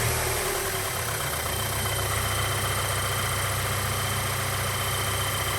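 Volkswagen EA888 2.0 TSI turbocharged four-cylinder engine idling steadily at operating temperature, settling into an even idle over the first second or so. The engine has been reassembled and is being run for an oil pressure check.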